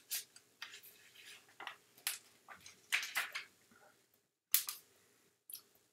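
Paper crackling and rustling as a picture-book page is turned by hand: a string of short, crisp crackles, loudest about halfway through.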